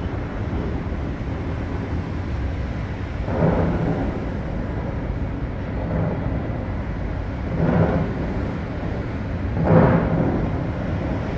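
Steady rumble of city street traffic heard from a high balcony, with three louder swells a few seconds apart.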